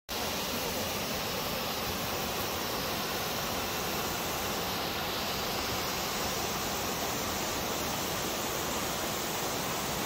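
Waterfall with white water pouring over rocks: a loud, steady, even rush of water that doesn't change.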